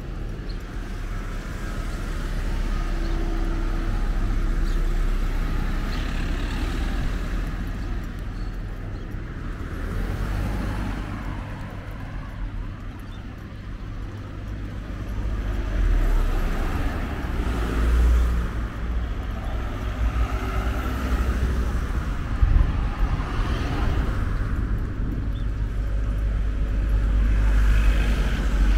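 Street traffic: cars driving past on a town road, with a deep rumble that swells and fades several times.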